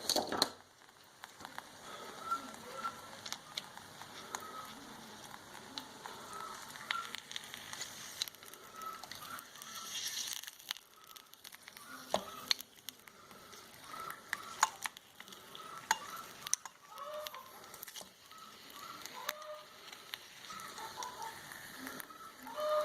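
An egg frying on the hot soleplate of a clothing iron: a steady sizzle with many scattered sharp crackles and pops.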